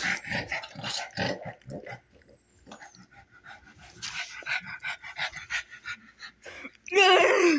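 Small dog panting and snuffling close up, in quick short breaths, then quieter. A short pitched vocal sound with a falling end comes near the end and is the loudest thing heard.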